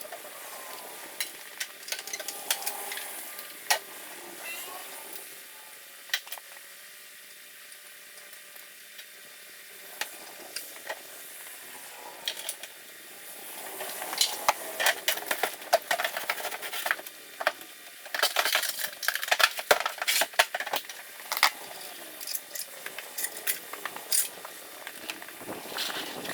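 Metal hand tools clinking, clicking and knocking in irregular bursts, busiest in the second half.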